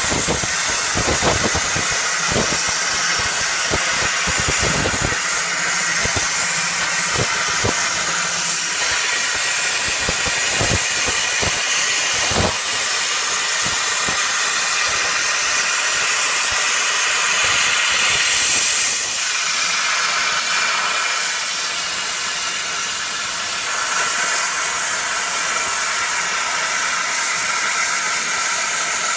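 Plasma arc of a portable CNC plasma cutter cutting through metal plate: a loud, steady hiss, with sharp crackles and pops over roughly the first twelve seconds.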